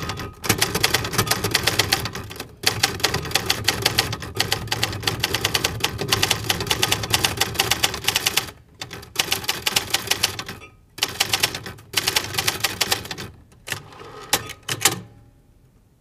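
Typewriter sound effect: rapid key clacks in long runs broken by short pauses, stopping about a second before the end.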